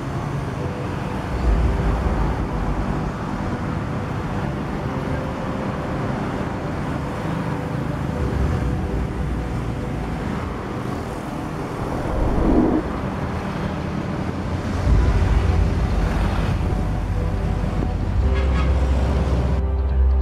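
City street traffic: steady road noise from passing cars and buses, with deeper engine rumbles swelling a few times. Near the end the traffic cuts out and a low, dark music drone takes over.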